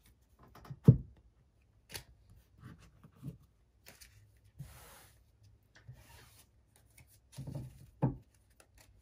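A deck of tarot cards being shuffled and handled: scattered rustles and clicks of cards sliding against each other, with a sharper knock about a second in and another near the end.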